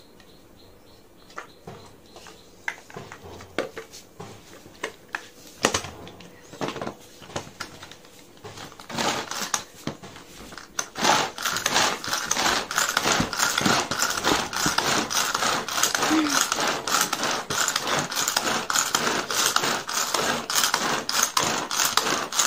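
Light clicks of cut onion pieces dropped into the plastic bowl of a Butterfly hand-pulled food chopper. About ten seconds in, the chopper is worked in quick repeated pulls, its blades spinning through onion, green chilli and raw mango in a continuous fast rattling whirr.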